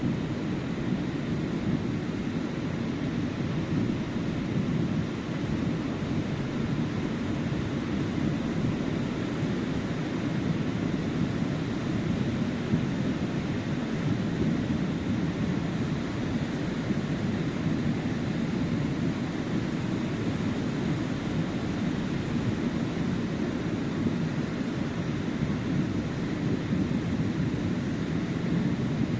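Ocean surf washing onto a sandy beach: a steady, low rushing noise, with no single wave crash standing out.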